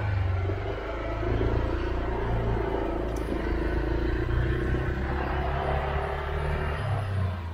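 Honda motor scooter's small engine running at low speed while riding, a steady hum that shifts slightly in pitch about a second in and again near the end.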